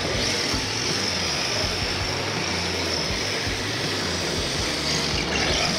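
Electric RC drift cars driving and sliding on concrete: a steady high-pitched motor whine over tyre hiss, with a brief rising whine near the end.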